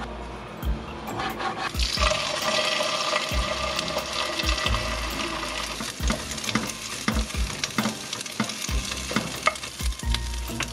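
Homemade shrimp burger patty frying in a pan. The sizzling starts suddenly about two seconds in, with scattered clicks and knocks of a utensil against the pan.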